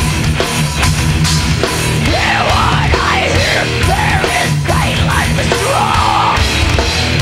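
Live death metal band playing: distorted electric guitars, bass and drums, with harsh screamed vocals coming in about two seconds in and ending on a held note near the end.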